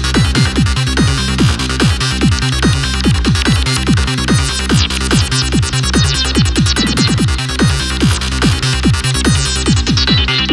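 Goa trance loop playing, with a steady four-on-the-floor kick, a rolling bassline and a busy synth lead made in Ableton Live's Operator. Near the end the high end is progressively filtered away, like a low-pass filter closing.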